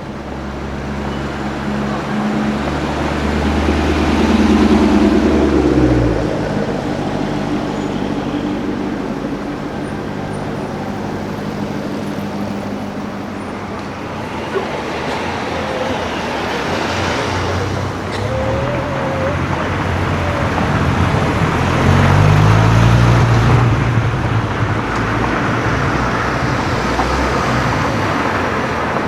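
Car engines pulling away and passing amid city traffic noise, with two louder passes where an engine revs up, about five seconds in and again past the twenty-second mark.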